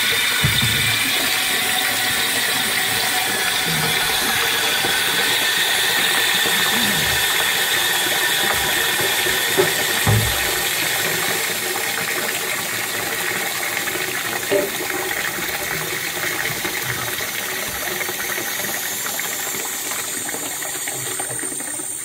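Water rushing in through a toilet cistern's ball valve as the cistern refills: a steady hiss with a high whistling tone that slowly falls in pitch and grows gradually quieter, with a few small knocks.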